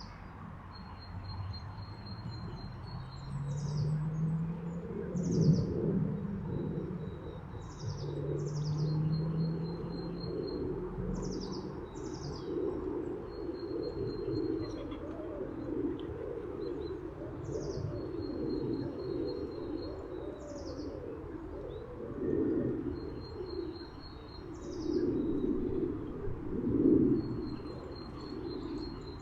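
Small birds, tits, calling with short high sweeping notes and thin trills, while pigeons coo low and steadily underneath.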